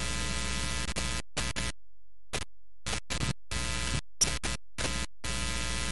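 Steady background music bed without speech, cutting out and back in abruptly many times in short chunks.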